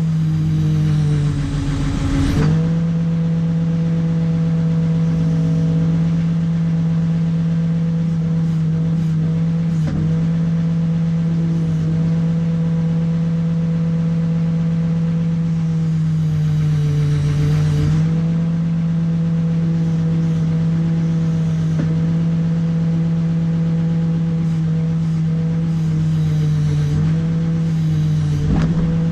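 Backhoe's diesel engine running steadily at working speed. Its pitch sags and recovers briefly about three times as the machine takes the load.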